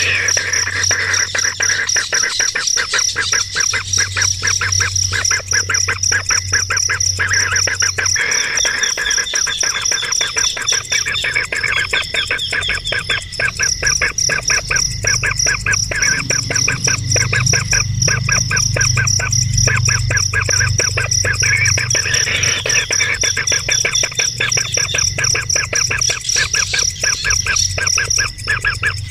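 Bird calls: rapid, continuous chirping over a steady high-pitched tone.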